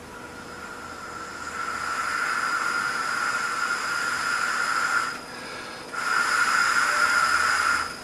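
Air blown by mouth through a tube into a YF-S201 water flow meter, spinning its impeller: a steady whistling whine over breathy hiss, growing louder over the first couple of seconds. It breaks off about five seconds in, then a second blow starts a second later and cuts off near the end.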